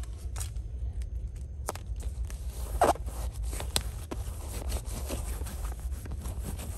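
Palms pressing and rubbing 6-inch white vapor barrier seam tape onto plastic-faced insulation: irregular crinkling and scraping of the plastic, with a sharper crackle about three seconds in. A steady low rumble runs underneath.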